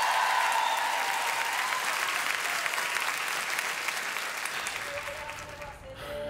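Applause that fades away over the last second or so, with a few steady musical notes coming in near the end.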